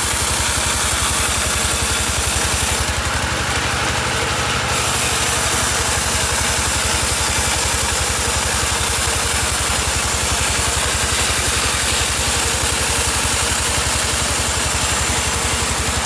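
Sawmill machinery's engine running steadily, with a fast, even low pulse under a constant hiss. It drops a little in level about three seconds in, then carries on unchanged.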